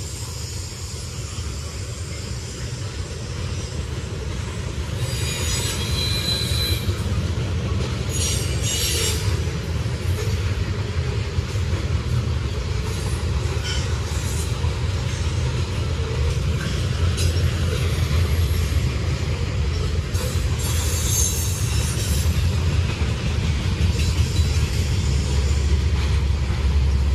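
Freight train cars rolling past on the rails, a steady low rumble that grows louder, with several brief bursts of high wheel squeal.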